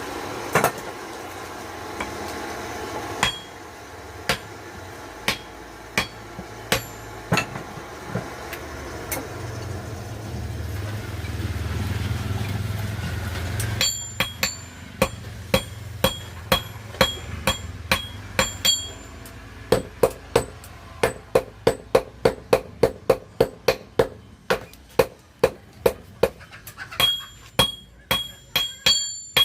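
Hammer striking metal, most likely during knife handle fitting. At first there are scattered blows over a steady low hum. From about halfway there is a run of ringing strikes that quickens to about two a second.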